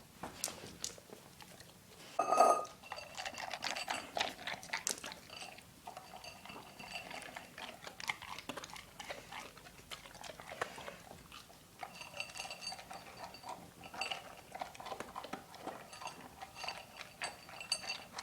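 Dog eating, with a steady run of small crunching and chewing clicks. About two seconds in comes a louder clink that rings briefly, and lighter clinks recur later.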